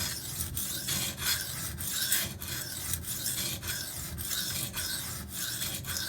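Maxamet steel knife edge being drawn across a coarse Venev diamond sharpening stone, a repeated dry rasping at about two to three strokes a second.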